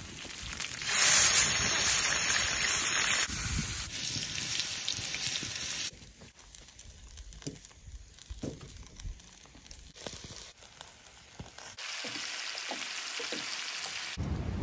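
Food sizzling on a hot griddle and grill over a wood fire, changing abruptly several times. A loud sizzle starts about a second in and softens. A quieter middle stretch has scattered crackles and pops from the fire, and steady sizzling returns near the end.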